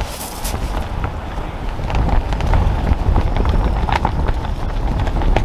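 Wind buffeting the microphone: a heavy low rumble that swells in the middle, with scattered small clicks and rustles over it.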